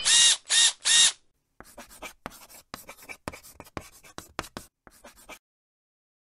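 Intro animation sound effects: three short, loud bursts in the first second, then a run of quick scratchy pen-on-paper writing strokes for about four seconds as the title is written out.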